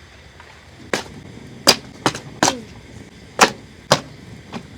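Wood being chopped: about seven sharp blows at uneven intervals, a few with a short ringing knock after the strike.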